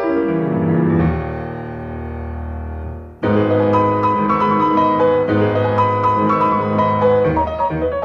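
Instrumental piano music: a falling run of notes settles into a held low chord, then about three seconds in a louder, fuller passage of quick notes begins.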